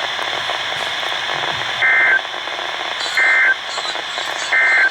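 Three short bursts of EAS digital data tones, the warbling SAME end-of-message signal that closes an alert. Each burst lasts about a third of a second, and they come about a second and a half apart over steady radio static.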